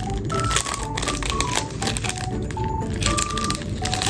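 Clear plastic sleeve crinkling and crackling as it is opened and photocards are pulled out of it, over background music carrying a melody of short notes.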